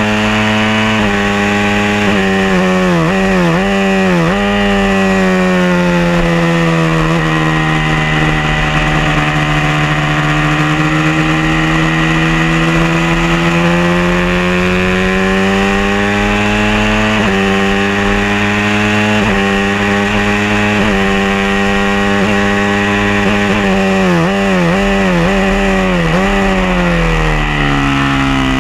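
Honda CBR250RR (MC22) 250 cc inline-four race engine at high revs on track. Its pitch steps through a run of quick gear changes about three seconds in and again near the end, and in between sags slowly and climbs again through a long corner.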